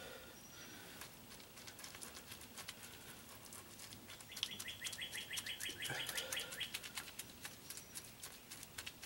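A songbird sings a rapid run of repeated high chirps for about two seconds midway through, over faint ticking and dabbing from a brush working resin into fiberglass cloth.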